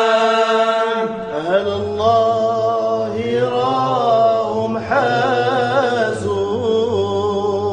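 A voice chanting an Arabic Sufi devotional song (nasheed), drawing out long notes with wavering ornaments and no clear words. A low steady hum joins beneath it about a second and a half in.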